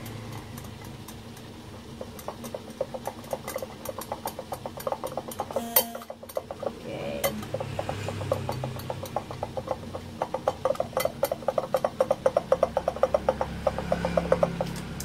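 Block of cheese being rubbed quickly back and forth on a flat metal grater, a rapid, even run of rasping strokes, several a second. The strokes start about two seconds in and break off briefly with a click about six seconds in.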